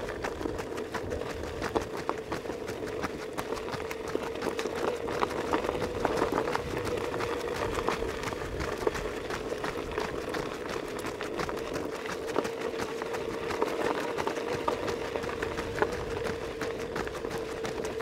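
Running footsteps of a group of runners on a dirt road: many quick, irregular footfalls over a steady hum.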